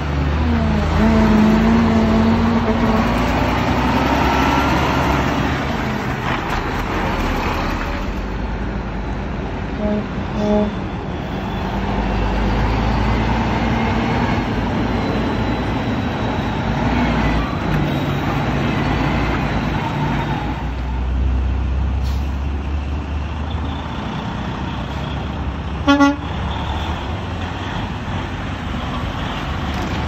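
Heavy diesel trucks driving past one after another, engines pulling away and changing pitch as they accelerate. Two short horn toots come about ten seconds in, and a single short, loud toot about 26 seconds in.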